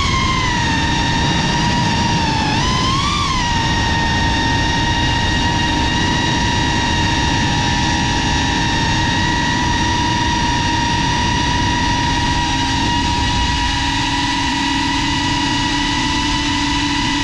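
CineLog35 cinewhoop's brushless motors and ducted propellers whining in flight over a steady rush of air. The pitch swells briefly at the start and again about three seconds in as the throttle changes, then holds steady.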